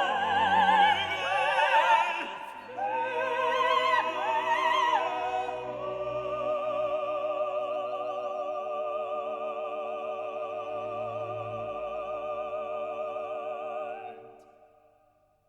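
Operatic voices singing with strong vibrato over an orchestra, settling into a long held chord that fades away to silence about fourteen seconds in.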